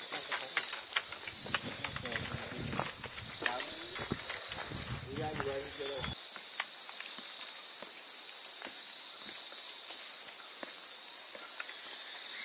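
Insects shrilling steadily in a continuous high-pitched buzz. Faint voices sit underneath during the first half.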